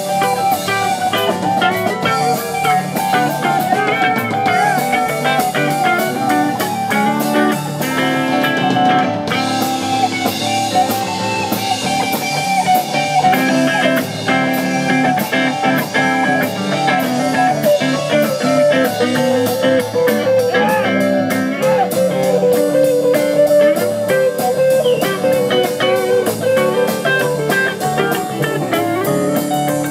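Live rock band playing: a melodic electric guitar lead over a second electric guitar, bass and a drum kit with cymbals.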